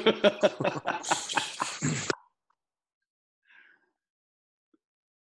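Men laughing in short bursts over a video call for about two seconds, then near silence.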